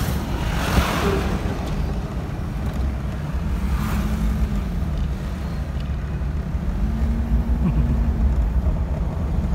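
Car on the move: a steady low engine and road rumble, with the engine note rising and falling slightly about four and seven seconds in. Brief rushes of noise about one and four seconds in.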